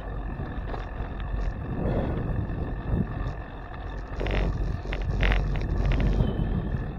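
Wind buffeting the microphone of a handlebar-mounted camera on a moving bicycle: a steady low rumble, with a cluster of short clicks about four to five seconds in.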